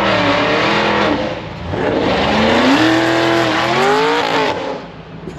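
Drag-race street car's engine revving hard as it pulls away, in two loud surges with a short dip about a second and a half in. The pitch rises and falls with each surge, and the sound fades near the end.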